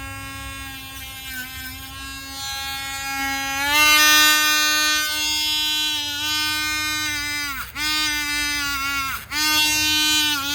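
Small electric power-tool motor running at high speed with a loud, steady whine. Its pitch rises slightly a few seconds in, then sags sharply twice near the end before recovering.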